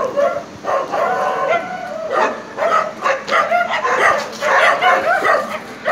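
A dog barking and yipping over and over in short, high calls, several a second.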